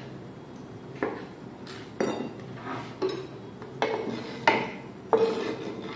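Chef's knife knocking and scraping on a wooden cutting board while chopping tomatoes and sweeping the pieces into a bowl: about six sharp knocks roughly a second apart, the later ones with a short ring.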